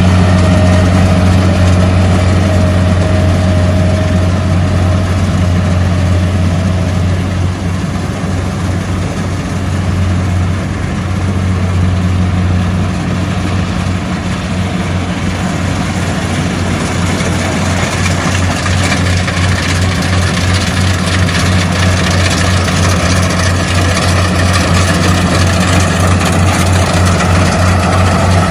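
Diesel engine and threshing gear of a tracked rice combine harvester running steadily while it cuts rice: a deep, even hum with a faint thin whine over the first several seconds.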